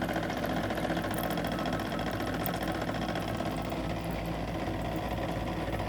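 Lumenis One IPL system's cooling unit running, a steady mechanical hum with a fast, even rattle, while water circulates through the repaired handpiece for a leak test.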